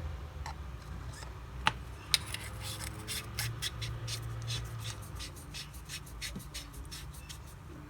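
Handling of a flashlight and its battery: two sharp clicks, then a run of quick scratchy ticks, about four a second, like a threaded tail cap being turned by hand.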